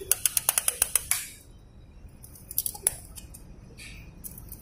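A quick run of sharp metallic clicks, about eight in the first second, then a few scattered clinks: a piston ring compressor being worked over a cylinder bore of a Maruti Suzuki Alto engine block as the ringed pistons are fitted.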